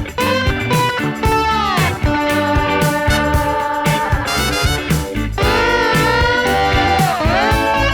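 Background music: an instrumental tune with a steady beat and guitar notes that slide in pitch.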